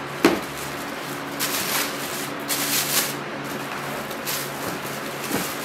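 A sharp tap as a shoebox lid comes off, then tissue paper rustling and crinkling in several bursts as hands pull it back inside the box.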